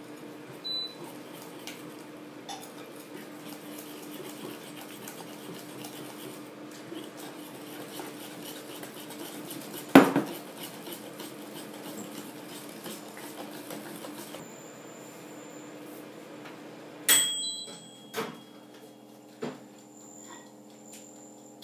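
Wire whisk beating egg, sugar and flour batter in a glass bowl, clinking rapidly against the glass, with one loud knock about ten seconds in. A steady hum under it stops about two-thirds through, and a few sharp clicks and knocks follow near the end.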